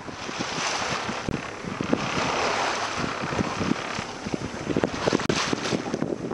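Wind buffeting the microphone in uneven gusts, over a steady rush of sea water around a small boat.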